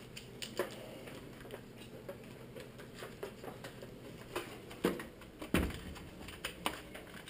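Irregular small clicks and taps of plastic parts being handled on a microwave's control panel while a replacement keypad ribbon is fitted, with louder knocks about five and five and a half seconds in.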